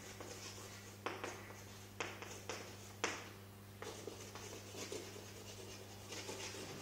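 Chalk writing on a chalkboard: scratchy strokes with sharp taps about once a second as letters are begun, over a steady low hum.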